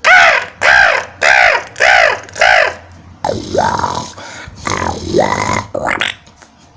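A man imitating an animal call with his voice: five short calls that rise and fall in pitch, about 0.6 s apart, then a rougher, quieter sound with sliding pitch for the next few seconds.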